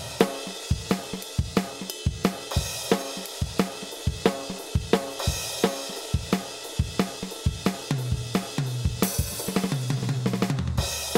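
Background music with a fast, steady drum-kit beat of snare, kick and cymbals, about three hits a second. A low bass line comes in during the last few seconds.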